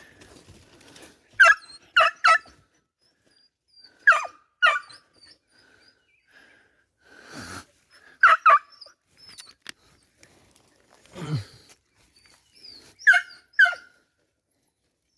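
Hunting dog barking at game holed up in a burrow: short, high barks in clusters of two or three, about four clusters, with a dull low thump between them.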